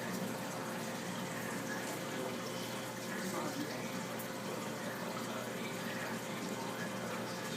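Steady running and trickling water from an aquarium's filter, with a faint constant hum.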